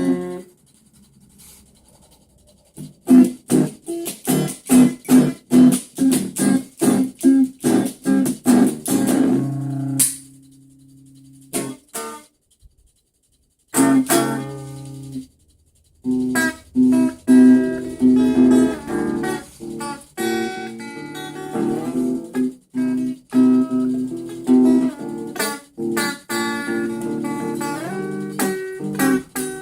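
A guitar being played: after a quiet couple of seconds, a run of quick repeated strums, a held chord, two brief stops, then steadier chords and picked notes.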